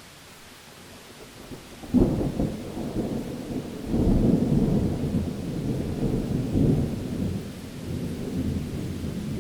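Thunder: after a faint steady hiss, a sudden thunderclap about two seconds in, then a long, low rolling rumble that swells again twice.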